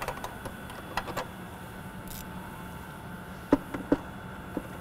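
Scattered sharp metallic clicks and taps from a bolt being started by hand and driven down with a ratchet on a long extension, fastening a plastic airbox in an engine bay. The two loudest clicks come close together about three and a half seconds in.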